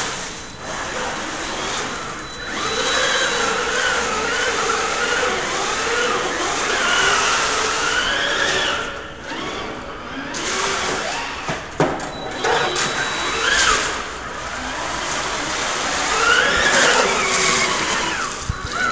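Amphibious RC car driving through shallow water: its motor whine rises and falls with the throttle over the hiss and splash of water churned up by its wheels.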